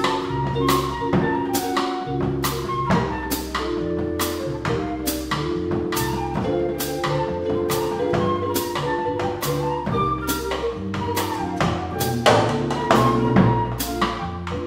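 Small jazz combo playing: a drum kit keeps time with cymbal strokes about twice a second over upright bass, keyboard and clarinet.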